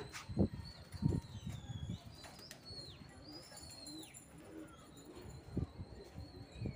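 Domestic pigeons at a rooftop loft: wings flapping in a few short bursts, soft cooing, and thin high chirping calls that glide up and down.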